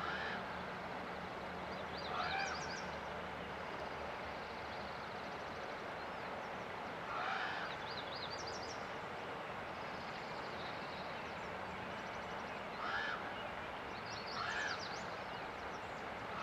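Steady rush of flowing river water, with bird calls rising over it about four times, each a short call topped by quick high chirps.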